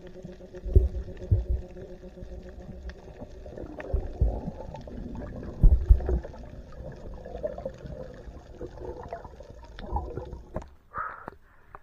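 Muffled underwater sound of a spearfishing dive: dull low thumps and knocks as a speared octopus is handled on the spear shaft, over a faint steady hum. Near the end the sound turns suddenly brighter and splashier.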